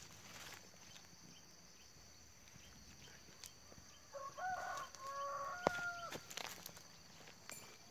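A rooster crowing once, about four seconds in: a few short broken notes ending in a long held note, about two seconds in all. Footsteps crunch on dry bamboo stalks before and after it.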